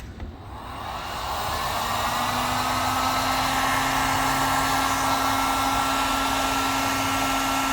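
Heat gun blowing hot air to soften the adhesive under a cracked phone screen glass. Its whine rises over the first couple of seconds as the fan spins up, then holds steady until it is switched off near the end.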